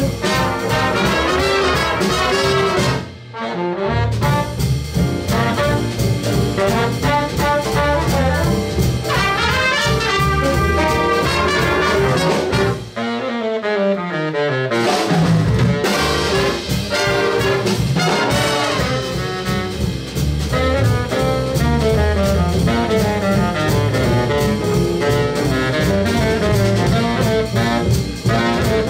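Jazz big band playing: saxophones, trombones and trumpets over drum kit, upright bass and piano. The band cuts off briefly about three seconds in, and around thirteen seconds in the upper parts drop out for about two seconds, leaving a few low lines alone before the full band comes back in.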